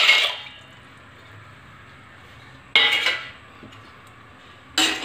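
Dry penne pasta poured from a steel bowl into a steel pot of water, rattling in, the pour ending just after the start. Then two short metal clanks of steel kitchenware, about three and five seconds in.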